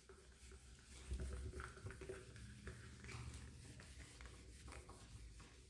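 Faint rubbing of a handheld duster wiping marker off a whiteboard, over a low room rumble.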